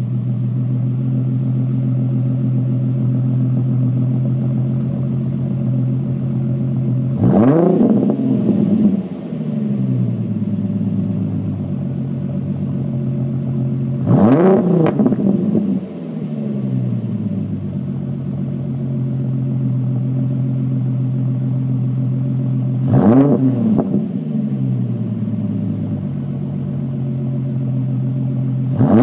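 2008 Ford Mustang's 4.0-litre V6 through a Pypes mid-muffler catback exhaust and shorty headers, idling steadily and revved three times. Each rev climbs quickly and drops back to idle within about two seconds.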